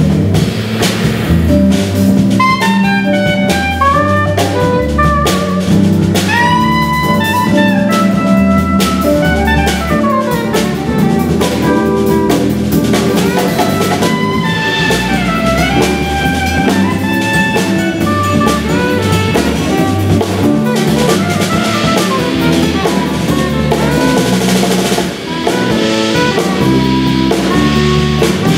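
Live band instrumental break: a soprano saxophone plays a bending, gliding melody over drum kit, bass and electric guitar.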